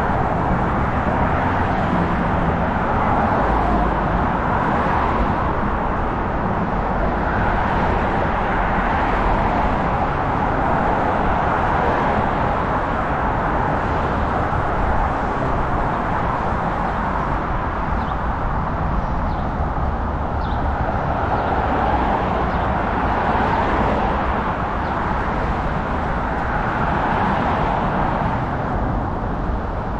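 Steady outdoor road traffic noise, swelling and easing every few seconds as vehicles pass.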